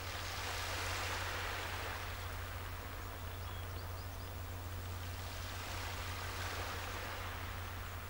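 Water washing in two slow swells, one about a second in and one near the end, over a steady low rumble. A few faint, short high chirps come about halfway through.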